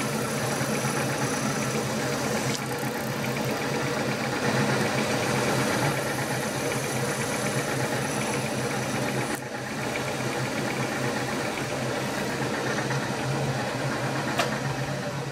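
A 5/8-inch twist drill in a drilling machine cutting through metal plate. The machine's motor and spindle run with a steady hum as curls of swarf come off the cut. The sound dips briefly about nine seconds in, and a single sharp click comes near the end.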